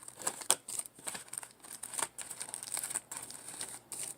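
Trading card pack wrapper crinkling and rustling in the hands, with irregular light clicks and snaps of the cards being handled.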